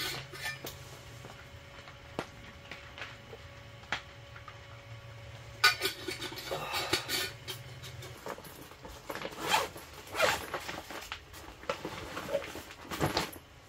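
Zipper and nylon rustling in several short bursts as a backpack is opened and a stuff sack pulled out of it.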